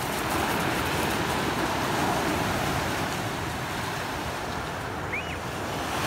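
Sea surf breaking and washing up a pebble beach, a steady rushing.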